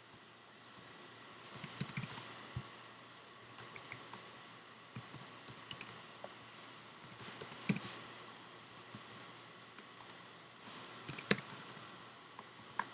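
Computer keyboard typing: irregular clusters of short keystroke clicks.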